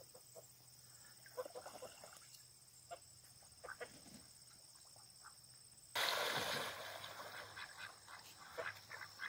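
Young Danish geese and Pekin ducks giving faint, short, scattered calls as they swim. About six seconds in, a louder rushing hiss comes in abruptly, and more calls sound over it.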